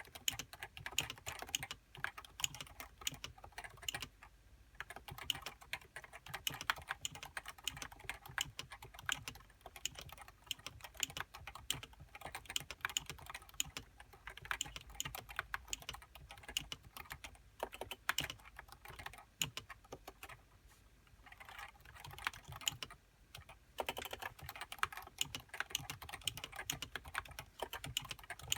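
Fast, continuous typing on a Topre Realforce 87U keyboard with variable-weight Topre capacitive switches and HiPro keycaps: a dense run of keystrokes with brief pauses about four seconds in and twice near the twenty-second mark.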